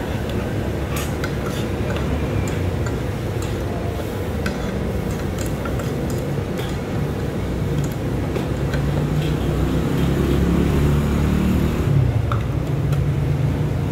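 Steady rumble of street traffic, swelling as a vehicle passes close in the second half, with light clicks of a metal spoon and fork against a plate.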